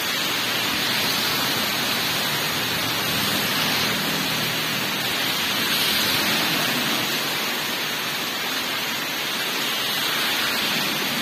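Heavy tropical rain falling steadily on a road and roofs, with cars passing on the flooded road and their tyres spraying water, the hiss swelling about the middle and again near the end.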